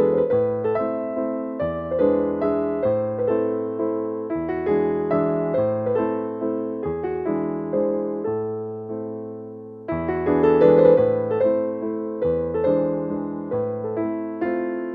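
Background music: a gentle piano or electric-piano piece of struck notes over a changing bass line, with a new phrase starting about ten seconds in.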